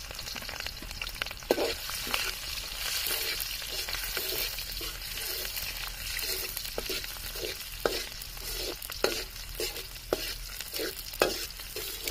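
Chopped onions frying in hot oil in an iron kadai, a steady sizzle throughout. From about a second and a half in, a metal spatula scrapes and taps against the pan as the onions are stirred, a stroke every second or so.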